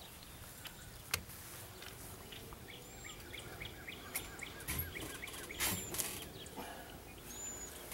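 Wild birds chirping: a quick run of repeated chirps around the middle and a few short high calls. A few sharp clicks and knocks of handling are mixed in, the loudest a little past the middle.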